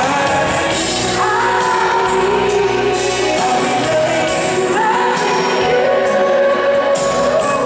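Live pop ballad performed on stage: a male lead singer's voice through the PA over the band's backing.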